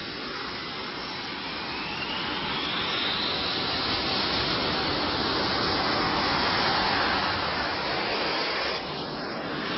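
Saab JAS 39 Gripen's jet engine running close by: a dense roar with a whine that rises in pitch over the first few seconds, the noise growing louder through the middle and dipping briefly near the end.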